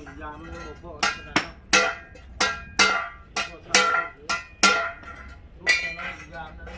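Hammer blows on steel during truck chassis frame work: an uneven run of sharp metallic clangs, about two or three a second, each ringing briefly.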